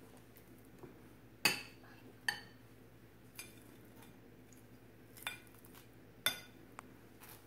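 A metal utensil clinking against a ceramic plate while mashed avocado is spread on toast: about six short, sharp clinks, the loudest about a second and a half in and just after six seconds.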